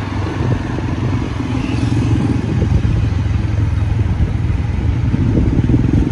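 Street traffic with a small engine running close by: a steady low drone that gets a little louder about a second in.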